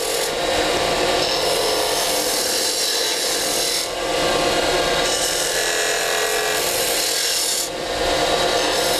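Spindle gouge cutting a cove into a wooden spindle spinning on a lathe: a continuous hiss of the cut over the lathe's steady hum, easing briefly about four and eight seconds in.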